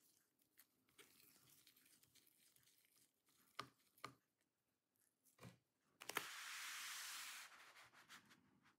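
Faint handling sounds of a screwdriver working small laptop screws: a few light clicks, then, about six seconds in, a rubbing hiss lasting about a second and a half.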